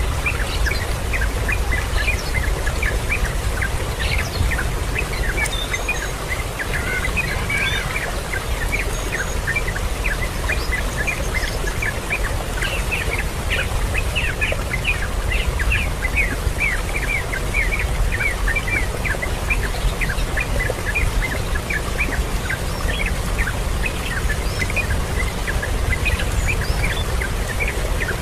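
Birds chirping: a dense, unbroken run of short high chirps, several a second, over a steady low rumble.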